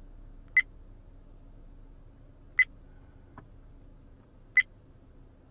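Three short, high electronic beeps, evenly spaced two seconds apart, with a faint click between the second and third.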